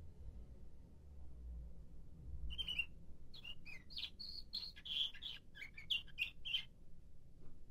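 Nightingale-song canary singing a quick run of short, varied chirping notes that starts about two and a half seconds in and stops shortly before the end.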